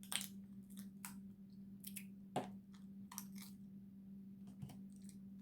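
Eating Dungeness crab: a few sharp cracks and clicks of shell and chewing, the loudest about a quarter second in and again near the middle, over a steady low hum.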